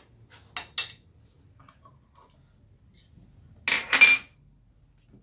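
Metal spoon clinking against a dish: a few light taps about half a second in, then a louder ringing clatter of clinks near the four-second mark.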